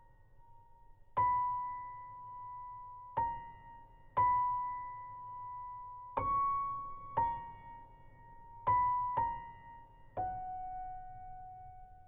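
Background music: a slow melody of single high piano notes, about eight in all, struck one at a time roughly every second or two, each ringing out and fading.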